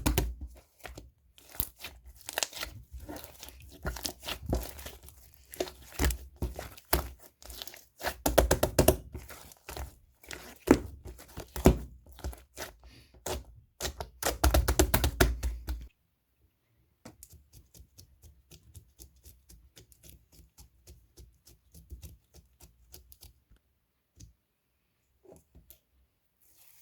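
Green marbled macaron slime being squished and stretched by hand, a dense run of small sticky clicks and pops. Sixteen seconds in, the clicks turn much fainter and sparser.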